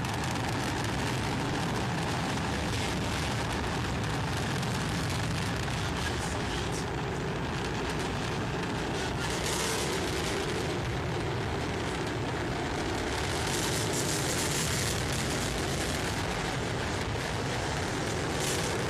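Proton-M rocket's first-stage engines firing, heard from a distance as a steady, even roar while the rocket flies off course and falls.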